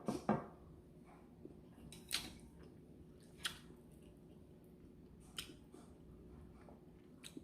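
Quiet eating sounds: chewing with a few short, sharp mouth smacks and clicks spaced one to two seconds apart.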